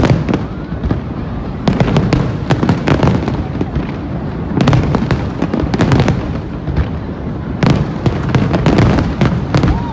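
Fireworks display: rapid volleys of bangs and crackling bursts come in three clusters about three seconds apart, with a low rumble between them.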